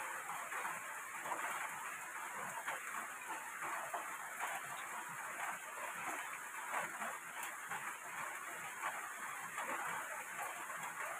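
Steady hiss of rain, with many small ticks and scrapes from cane strips being handled and woven by hand.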